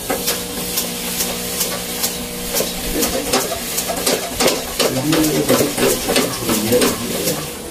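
Foot-pumped Singer treadle sewing machine running, its cast-iron treadle and works rattling with a stream of irregular clicks over a low steady hum.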